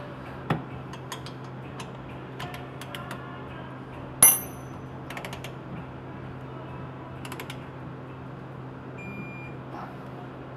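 Ratcheting torque wrench clicking in short runs as it turns the 12 mm brake-line banjo bolt into the back of a brake caliper, with one louder metallic clack about four seconds in. A short high beep near the end is typical of a digital torque wrench reaching its set torque.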